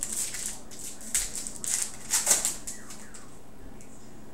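Foil trading-card pack wrapper crinkling and tearing as it is opened by hand, in several short rustling bursts, the loudest about two seconds in.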